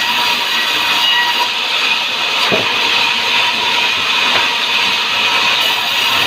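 Sawmill saw running steadily through timber, a loud even hiss with a faint steady whine, and one short knock about two and a half seconds in.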